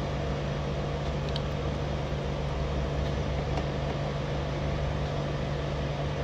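Steady machine hum: a constant low drone under an even noise, with a faint click about a second in.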